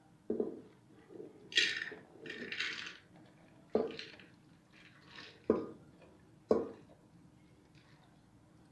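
Washed toor dal tipped from a steel bowl into an aluminium pressure cooker: two short rattling pours of grain about one and a half and two and a half seconds in, and four sharp clinks of metal on metal as the bowl knocks against the cooker.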